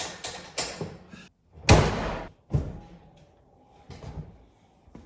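A run of sharp knocks, then one loud slam about one and a half seconds in with a short rumble after it, followed by another knock and a few fainter ones.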